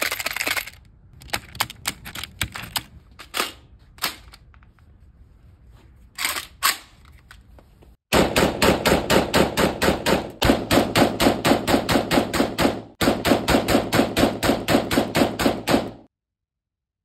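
Metal clicks and clacks of a drum magazine being handled and wound for the first several seconds, then an AK-47 firing fully automatic from the drum: three long bursts at about ten shots a second, echoing in an indoor range.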